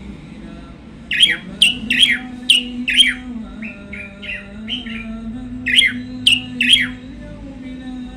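Caged small songbird singing: a string of sharp, quickly falling high notes, a softer run of shorter notes in the middle, then three more sharp falling notes before it stops.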